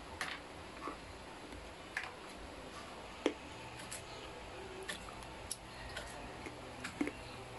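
Kitchen knife slicing grilled pork belly on a plastic cutting board: faint, uneven clicks and taps of the blade meeting the board, the sharpest about three seconds in.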